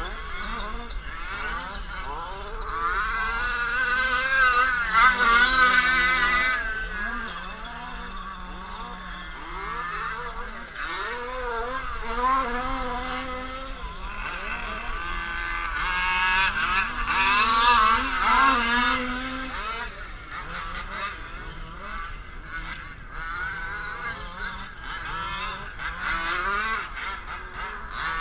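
Small two-stroke engines of gas-powered 1/5-scale RC cars revving up and down as they race around a dirt track. They get loudest twice, about five seconds in and again around seventeen seconds in, as the cars pass closest.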